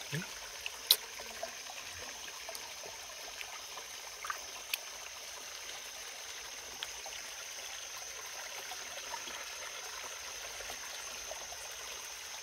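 Shallow stream water trickling steadily under a steady high-pitched hiss, with a few sharp ticks, the loudest about a second in.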